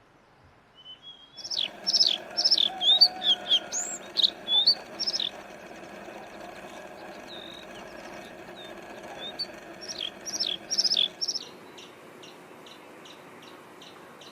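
A songbird singing: a fast phrase of sharp, downward-sweeping whistled notes about a second and a half in, a second phrase near ten seconds, then a string of short repeated chips toward the end. A steady low hum runs beneath the song and stops near the end.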